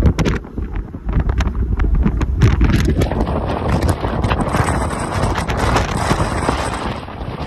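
Wind buffeting the microphone of a phone held at a moving car's side window, full of rapid pops over a low rumble of the car on the road. The rushing gets fuller about three seconds in.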